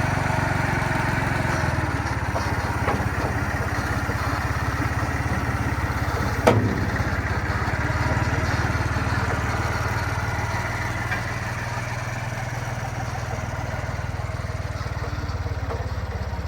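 Hyster S50C forklift engine running steadily, with one sharp knock about six and a half seconds in.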